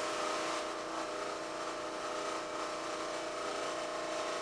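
Steady hum of a small motor, a drone with a few held tones that does not change.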